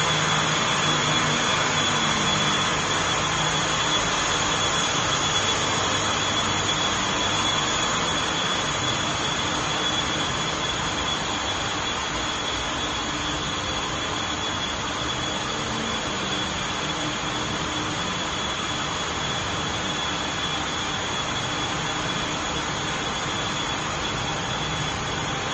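Heavy plant machinery running steadily, a constant loud rushing noise with a steady high whine over it, as from the big fans, pumps and compressors of a large HVAC plant.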